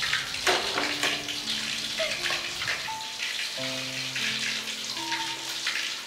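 Food crackling and sizzling in a wok on a gas stove, under slow background music of held notes.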